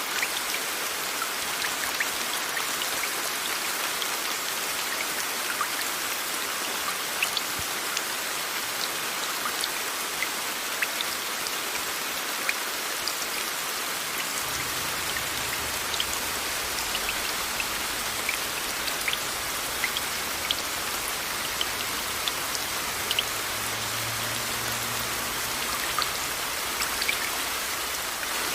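Steady rain mixed with a white-noise hiss, with scattered sharp drop impacts ticking over an even wash of sound.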